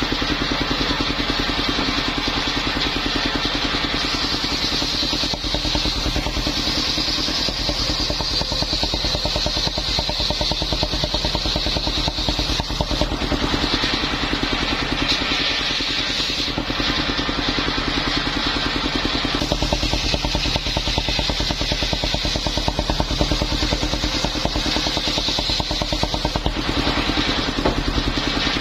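Mobile engine-driven circular sawmill running steadily, its engine pulsing evenly under a high blade whine that swells and eases as the saw cuts timber.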